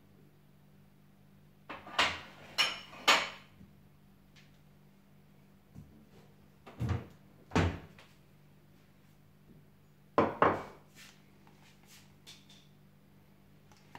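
Kitchen clatter of things being handled off to the side: a few sharp knocks and clunks in three short groups, about two seconds in, around seven seconds and around ten seconds, over a faint steady low hum.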